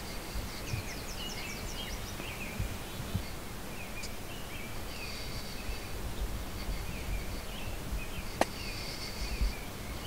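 Small songbirds singing in the woods: scattered chirps, a quick run of falling notes near the start, and high held whistles, over a low outdoor rumble. One sharp click about eight seconds in.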